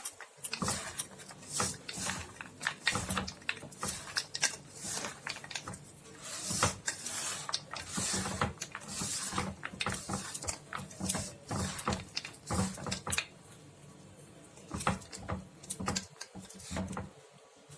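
Raw peanuts in a damp coating of spice and flour being tossed and mixed by hand in a bowl: a run of irregular clicks and rustles as the nuts knock together, thinning out near the end.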